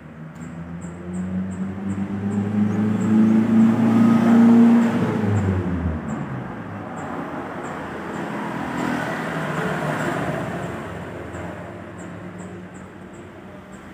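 Road traffic: a motor vehicle's engine passes close by, loudest about four to five seconds in, its pitch falling as it moves away. A second, quieter vehicle passes around nine to ten seconds in.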